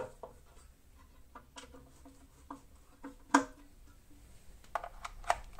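Scattered clicks and light metal knocks from handling the bench grinder's wheel guard and working its screws with a screwdriver, a few of them ringing briefly. The sharpest knock comes about three and a half seconds in, with a quick run of clicks near the end.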